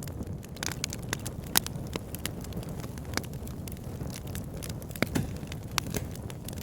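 Campfire burning: a steady low rumble of flame with irregular sharp crackles and pops. The loudest pops come about one and a half seconds in and around five seconds in.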